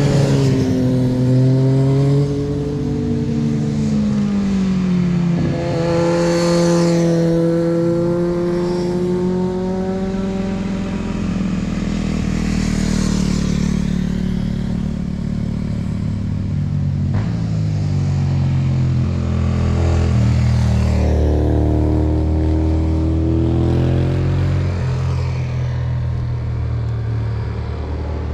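Motorcycles passing one after another through a bend, their engines revving, with the pitch gliding down and rising again as they shift and go by.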